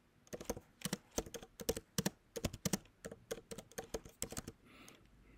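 Typing on a computer keyboard: a quick, uneven run of keystrokes, a short phrase being typed, stopping about four and a half seconds in.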